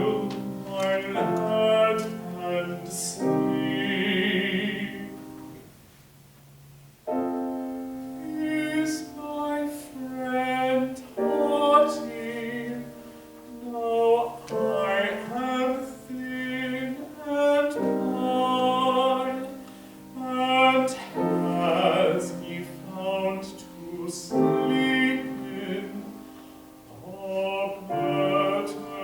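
Classical solo singing with piano accompaniment: an English art song sung in an operatic style with vibrato. The music drops to a short lull about six seconds in, then the voice and piano resume.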